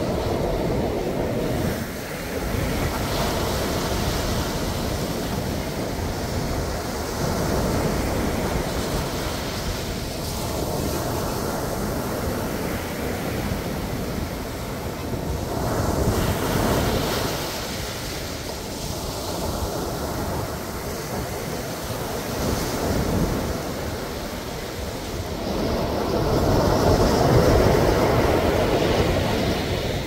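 Sea waves breaking and washing up on the beach, a continuous surf that swells and fades every few seconds and is loudest near the end.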